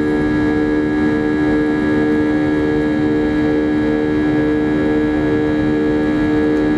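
Airbus A320 engines and airflow heard inside the passenger cabin in flight: a steady drone of several hum tones over a constant rush of air, one tone pulsing slowly and regularly.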